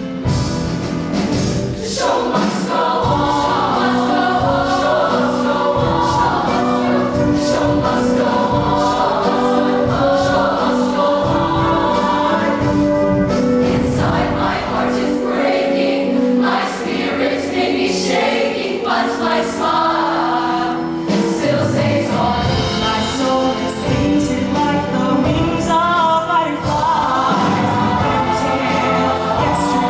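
Show choir singing in parts over a backing band, held sustained chords and moving lines.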